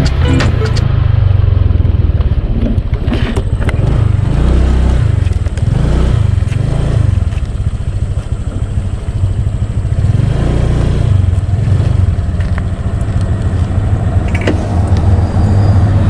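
Honda motor scooter being ridden at road speed: the engine runs steadily under a heavy, uneven low rumble.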